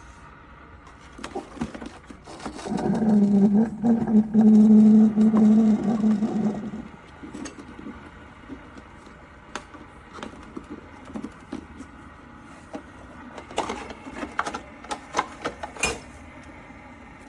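A small electric motor in the coffee maker hums steadily for about four seconds and then stops. Later come a series of sharp clicks and knocks, as plastic parts are handled.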